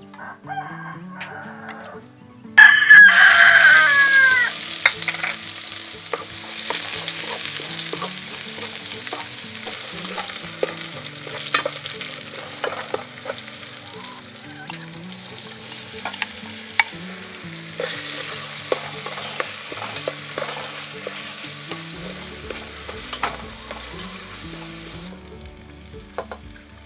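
Food dropped into hot oil in a pan about two and a half seconds in, sizzling loudly at first and then settling into a steady sizzle, with the clinks of stirring. A rooster crows briefly as the sizzle starts.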